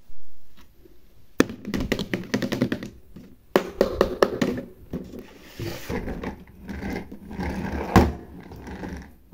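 Hands handling a plastic toy kitchen set in its trolley-style carrying case. First comes a quick run of clicks and taps, then rustling and scraping, with one loud plastic thunk near the end.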